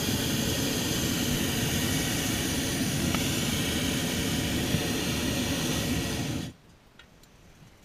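Hot-air balloon's propane burner firing overhead, a steady loud roar that cuts off sharply about six and a half seconds in.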